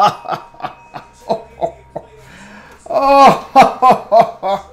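A man laughing at his own joke: a few short chuckles, then a louder run of laughs about three seconds in.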